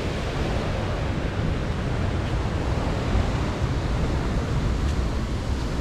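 Steady rushing noise of sea surf breaking on the shore, mixed with wind on the microphone.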